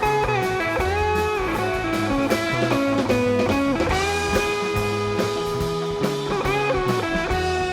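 Background music: a live rock jam with an electric guitar lead playing long, bending notes over bass.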